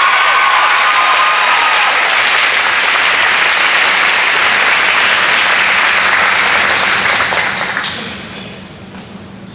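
Audience applauding, loud and steady, then dying away over the last couple of seconds.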